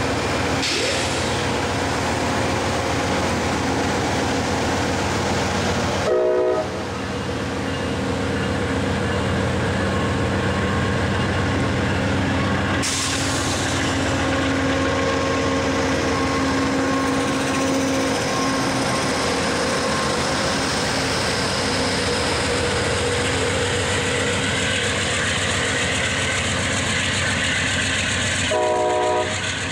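Amtrak passenger train of bilevel cars rolling slowly past with its Genesis P42DC diesel locomotive running steadily. Two brief tones sound, about six seconds in and again near the end.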